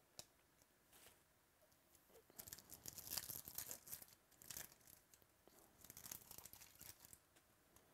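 Baseball card pack's foil wrapper being torn open and crinkled by hand, in two spells of crackly rustling a couple of seconds each, with a light click just after the start.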